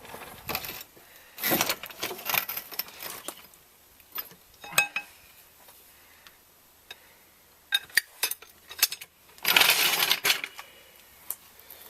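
Metal tools and parts being handled, with scattered clinks and clanks and a harsher rattling scrape near the end.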